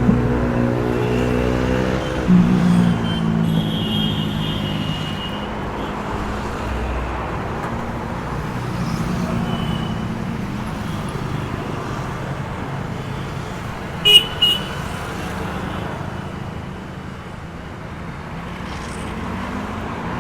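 Roadside traffic with a steady rumble of passing vehicles; an engine passes close and fades in the first couple of seconds. About fourteen seconds in, a vehicle horn gives two short, high-pitched toots.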